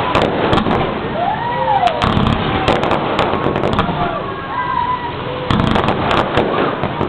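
Fireworks going off: a dense run of sharp cracks and bangs, with several high tones that rise and fall in pitch.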